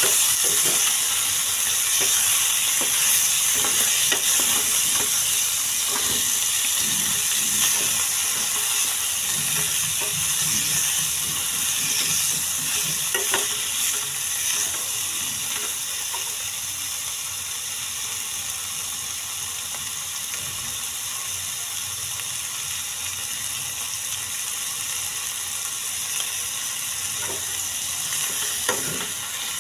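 Chicken pieces sizzling in hot oil in a frying pan, stirred with a metal spoon that clinks and scrapes against the pan now and then. The sizzling eases a little after the middle.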